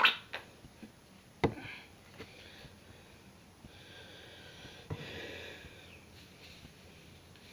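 Plastic hair-dye applicator bottle squeezed over the head, giving sharp clicks and short spluttering squirts, the loudest about a second and a half in. From about four seconds in, a soft rustle as hands rub the dye through the hair.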